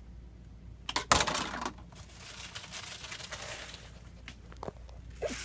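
Plastic spinach packaging crinkling and spinach leaves rustling as a handful is pulled out, loudest about a second in, then fainter crackling with a few light clicks.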